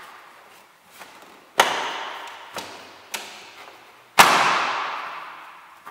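Plastic front grille of a VW Polo 6R being pushed home by hand and snapping into its clips: two loud sharp knocks, about a second and a half in and again past four seconds, each fading out over about a second, with a couple of lighter clicks between them.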